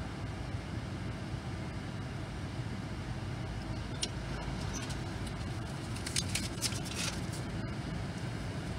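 Car engine idling steadily, heard from inside the cabin. A few brief light clicks and rustles come about four to seven seconds in.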